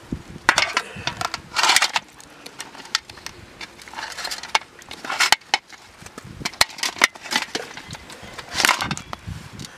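A large mud crab's shell cracking and crunching as it is pulled apart by hand and its claws and legs are broken off, with irregular sharp cracks and short scraping crunches.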